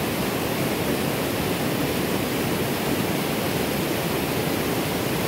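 Creek water rushing steadily, a constant even hiss with no breaks.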